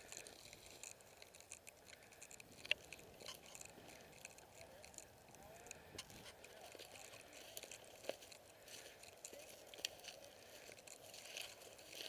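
Faint crunching and rustling of movement through dry leaves and brush, with a few short sharp clicks, the loudest about two and a half seconds in.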